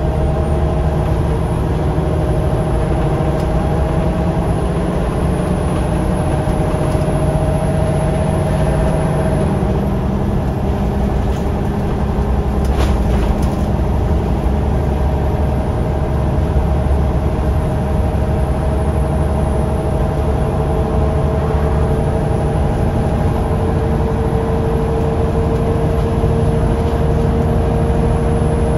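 Scania L94UB bus heard from inside the saloon: the rear-mounted nine-litre five-cylinder diesel drones steadily under road noise. A whining tone shifts about a third of the way in, and another slowly rises in pitch through the second half, with a brief click near the middle.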